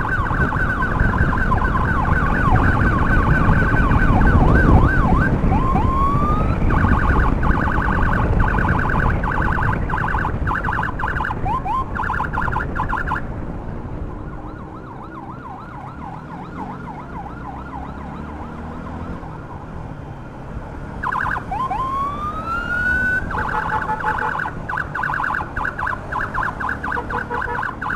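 Electronic emergency siren cycling between a fast, rapidly pulsing yelp and a rising wail, over a heavy low rumble of wind and road noise. The siren drops back about halfway through, then a rising wail about three quarters of the way in brings the fast pulsing back near the end.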